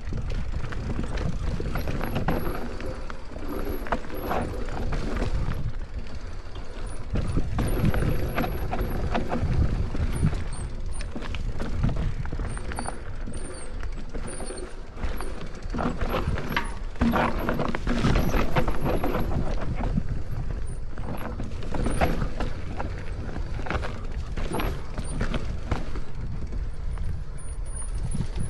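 Electric mountain bike riding down a dirt singletrack: tyres rolling over dirt and roots with a steady low rumble, and the chain and frame rattling and clicking irregularly over the bumps.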